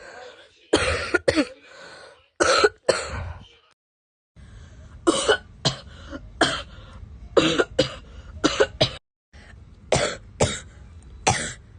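A girl coughing over and over: about fifteen short, sharp coughs, mostly in quick pairs, with brief pauses between the bouts.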